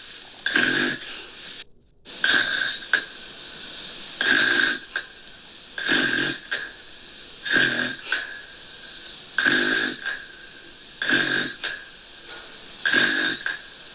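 Gentle snoring in a steady rhythm, eight snores a little under two seconds apart, each about half a second long, over a steady hiss. About two seconds in there is a brief drop-out to near silence.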